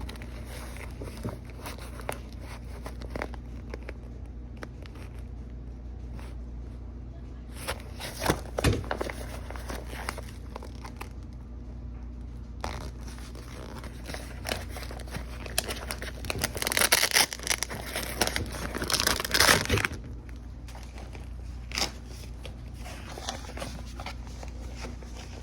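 Packaging being handled and opened, with crinkling, scraping and tearing. The rustling is loudest in a long stretch past the middle. A steady low hum runs underneath.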